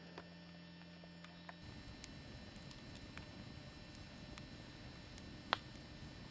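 Campfire crackling faintly, with scattered small pops and one sharper pop about five and a half seconds in.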